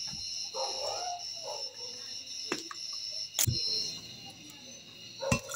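Quiet background music with a few sharp knocks, the loudest about three and a half seconds in.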